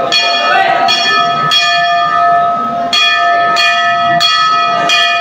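Temple bell rung repeatedly, struck roughly every half-second to second with a longer pause near the middle, each stroke ringing on into the next.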